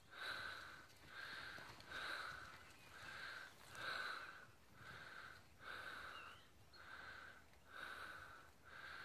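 A person's rapid, even breathing close to the microphone, faint, about one breath a second.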